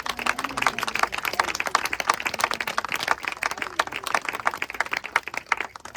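A small group clapping hands in applause, dense and steady, with a few faint voices mixed in, dying away at the very end.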